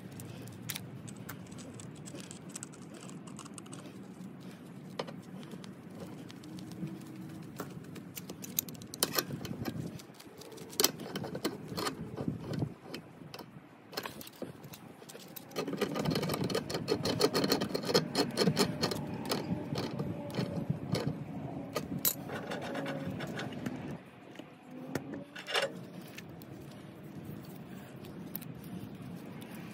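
Threaded black iron gas pipe being screwed together and tightened with a wrench: scattered metal clicks, clinks and scraping of the tool against the pipe, with a louder spell of rapid clicking about halfway through.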